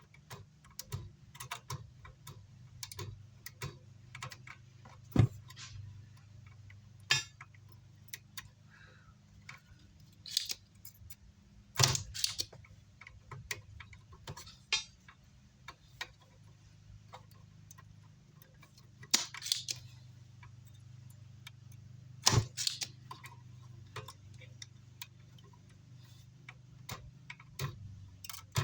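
Irregular small clicks, taps and a few sharper knocks of hand tools working on an amplifier circuit board to free a stubborn switch, over a steady low hum.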